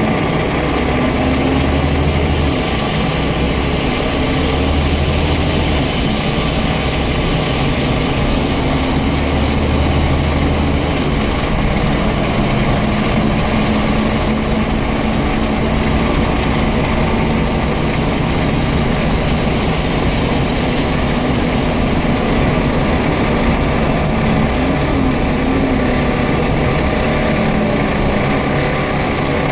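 Scania N94UD double-decker bus's diesel engine running under way, heard from inside the lower-deck saloon, its engine note shifting up and down several times with a heavy low rumble in the first half, then holding steadier.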